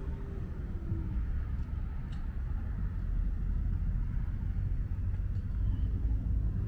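Wind buffeting the microphone outdoors: a low, uneven rumble, with a faint click about two seconds in.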